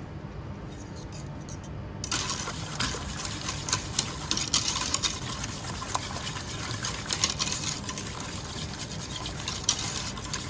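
A wire balloon whisk stirring thick barbecue sauce in a stainless steel pot: wet sloshing with the wires ticking and scraping against the pot, starting about two seconds in. The sauce is kept moving so it does not stick to the bottom as it heats.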